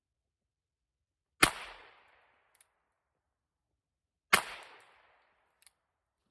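Two gunshots about three seconds apart, each followed by a decaying echo and a faint sharp tick about a second later.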